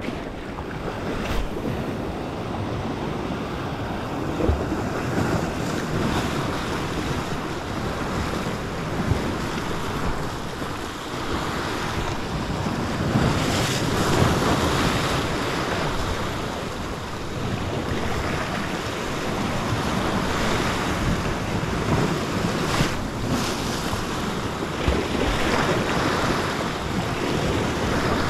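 Sea surf washing over rocks close below, the wash swelling and falling back every few seconds, with wind buffeting the microphone.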